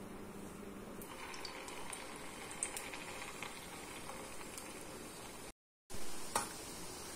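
Jalebi batter sizzling and bubbling in hot oil as it is piped in and deep-fries, with scattered small pops. The sound cuts out briefly about five and a half seconds in.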